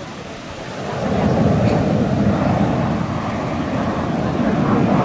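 Dassault Rafale C fighter's twin M88 jet engines during a display pass, a steady rough rumbling noise that gets louder about a second in.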